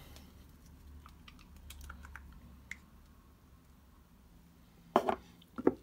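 Scattered light clicks and taps of painting supplies being handled on a desk, with one sharper click about five seconds in.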